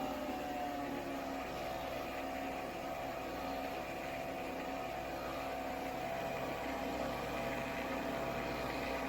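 Nespresso Vertuo Next coffee machine running while it brews: a steady whirring hum from the spinning capsule and pump, holding even throughout.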